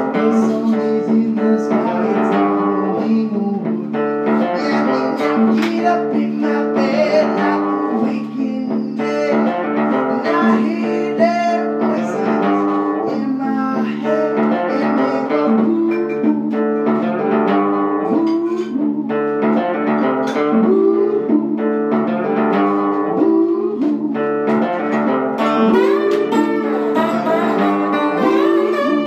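Guitar played in a bluesy tune, plucked and strummed over sustained low notes.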